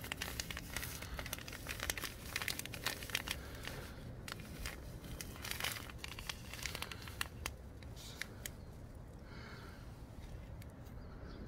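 A cat rustling through dry leaves and twigs as it moves back into a crevice, a dense irregular crackling that thins out after about seven seconds.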